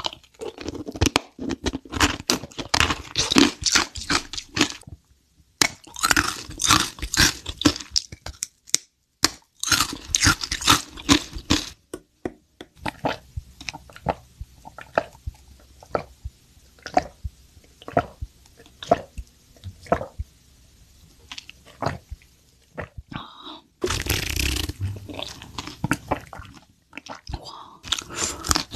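Close-miked crunching and chewing of brittle honeycomb toffee in several dense bursts. A quieter stretch in the middle holds sparser mouth sounds while milk tea with tapioca pearls is drunk.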